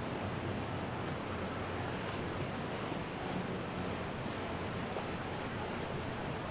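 Steady wind and water noise, an even hiss with no distinct events, from wind on the microphone and water along the waterway.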